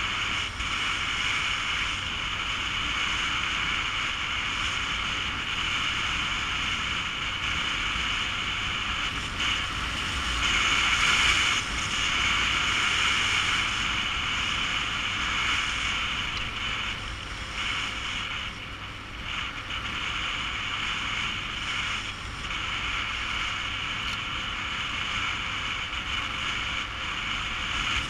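Wind rushing over the microphone of a camera on a moving motorcycle, over the steady rumble of a Yamaha Super Ténéré's parallel-twin engine and its tyres on a dirt road. It swells a little louder about ten seconds in.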